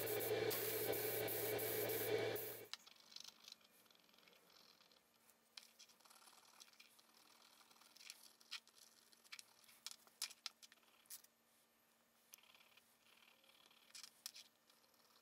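Steady hiss of paint being sprayed, with a low hum under it, cutting off suddenly about two and a half seconds in. Then faint scraping and small clicks of a steel pick working over a small brass part.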